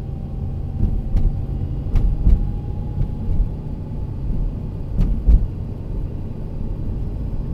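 Low, steady rumble of a car's engine and tyres heard from inside the cabin while driving slowly. A few short knocks and bumps come through about a second in, around two seconds in and again around five seconds in.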